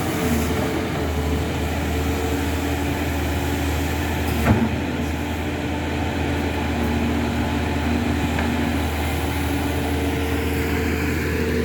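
Backhoe's diesel engine running steadily, with one sharp knock about four and a half seconds in.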